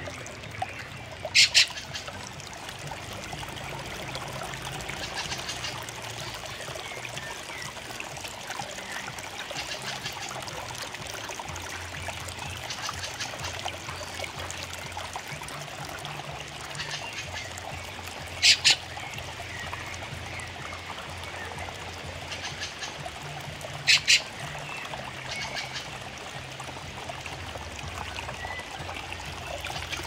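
A fieldfare gives a short, sharp double call three times, loud against a steady rushing background, with fainter bird calls in between.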